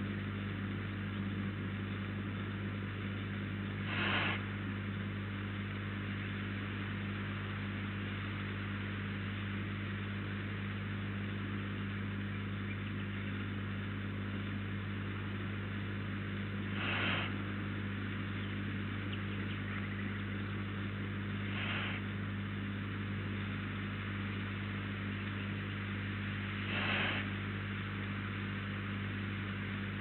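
Steady low electrical hum with a constant hiss, as from a surveillance camera's microphone, broken four times by short hissing sounds of about half a second each.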